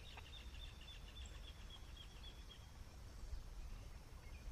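Rapid, evenly repeated high chirps from a small animal in the wild, about five a second, stopping a little over halfway through, over a low steady rumble.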